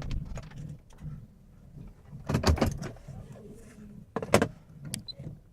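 Two short clusters of knocks and rattles inside a car, about two seconds in and again near the end, over a low rumble.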